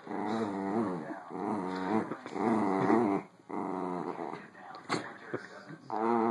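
Dachshunds growling in play while tugging on a plush toy in a tug-of-war: long, wavering growls in stretches of a second or two, broken by short pauses, and fading near the end.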